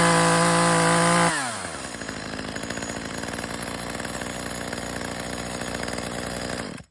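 Echo CS2511-T top-handle chainsaw's 25 cc two-stroke engine, newly rebuilt with a replacement short block, held at high revs, then dropping back about a second in to a steady idle. The sound stops abruptly at the very end.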